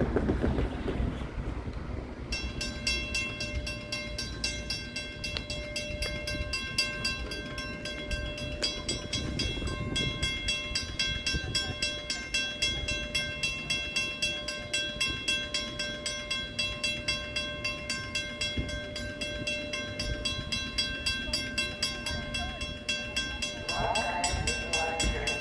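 Railroad grade-crossing bell starts about two seconds in and rings in a fast, even rhythm, over a low rumble.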